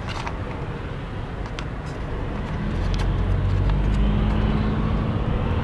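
Car cabin noise at freeway speed: a steady rush of tyre and road noise over a low rumble. A low hum comes in about halfway through, and the sound grows a little louder.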